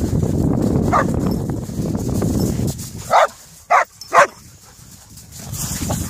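Belgian Malinois giving three short, sharp barks about three seconds in, after a low rumbling noise: an adult dog warning off a puppy that keeps jumping on her.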